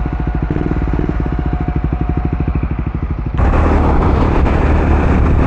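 Triumph Speed 400's single-cylinder engine running through an aftermarket slip-on exhaust, a deep, even pulsing beat. About three seconds in it changes abruptly to a steady low engine drone.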